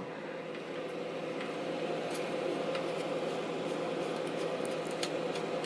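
Steady hum of powered-up bench electronics and their cooling fans, with a few faint clicks as a coaxial RF connector is handled and unscrewed.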